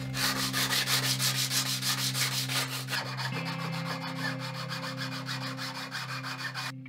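Wooden molding being sanded by hand with 120-grit sandpaper to smooth its planed profile: quick, even back-and-forth rubbing strokes that stop shortly before the end.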